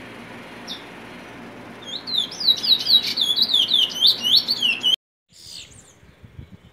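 Trinidad bullfinch (chestnut-bellied seed finch) singing: a single short note, then about three seconds of rapid, curving, whistled notes at about five a second, which cut off abruptly.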